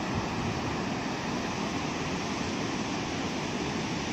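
Fast-flowing mountain river rushing over rocks, a steady rushing noise with no breaks.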